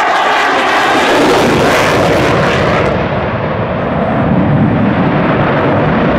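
Loud jet noise from an F-22 Raptor's twin Pratt & Whitney F119 afterburning turbofans as the fighter flies its display. It is a steady rushing roar, and its highest hiss cuts off about three seconds in while the lower rumble carries on.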